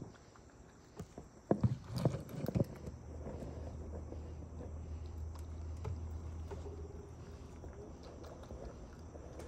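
Night insects such as crickets chirping in a steady pulse, with a quick run of several loud knocks or bumps about two seconds in.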